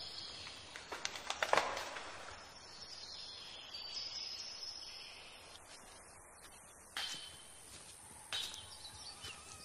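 Outdoor nature ambience: faint high bird calls over a light hiss, with a few sharp clicks or knocks, the loudest about a second and a half in.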